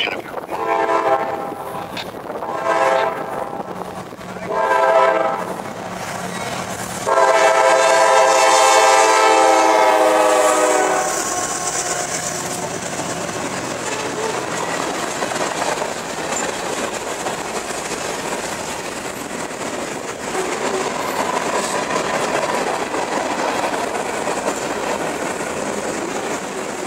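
A Norfolk Southern GE C40-9W diesel locomotive's air horn sounds three short blasts and then one long blast of about four seconds, the pattern blown for a road crossing. The freight cars then roll past with a steady rumble and wheels clacking over the rail joints.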